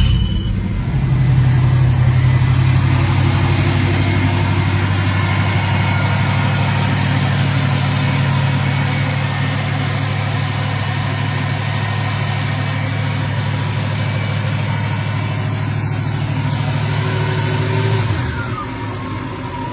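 1972 Pontiac Firebird engine on its first start, catching right at the start and settling into a steady fast idle. About 18 seconds in, the idle drops lower and a little quieter.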